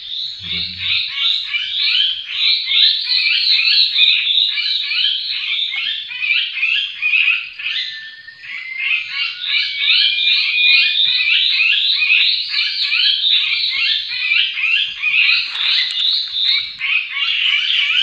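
Dense, rapid high chirping of small birds, several short notes a second without a break. A few thin, steady whistled notes come through about eight to eleven seconds in.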